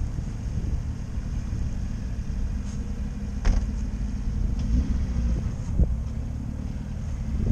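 Lada Niva's four-cylinder engine running steadily at low revs on rough off-road ground, with three sharp knocks: about halfway through, a couple of seconds later, and at the very end.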